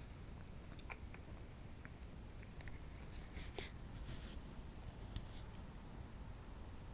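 Quiet room tone with a low steady hum and a few faint clicks and scratchy rustles; the loudest is a short cluster about three and a half seconds in.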